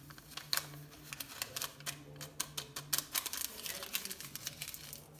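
Paper sachet of baking powder being torn and handled over a mixing bowl, its paper crinkling and ticking in a string of small, irregular clicks as the powder is shaken out.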